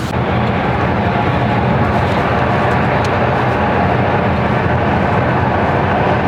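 Steady road noise inside a moving car: an even rush of tyre noise with a low engine hum underneath.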